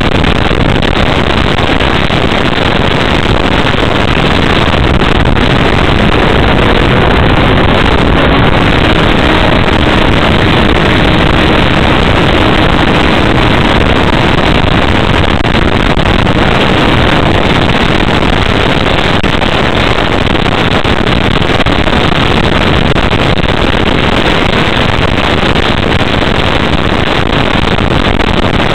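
Loud, steady rushing flight noise from a Sky Surfer RC motor glider, picked up by a camera mounted on the model as it flies.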